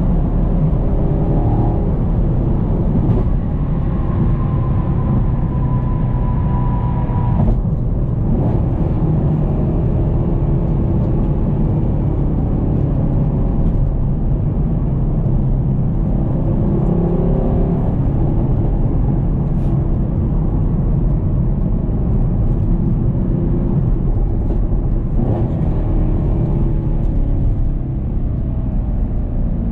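The 6.2-litre LT1 V8 of a Camaro SS 1LE, running under load while driving, its pitch slowly rising and falling with engine speed. There is a brief break in the sound about seven and a half seconds in.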